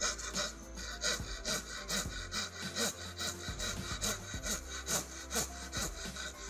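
Japanese hand saw cutting through a wooden beam in steady, even strokes, about two a second.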